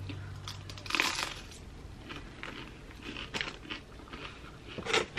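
Close-up biting and chewing of a toasted tuna sub with potato chips tucked inside: a few short crunches, the loudest about a second in, between quieter chewing.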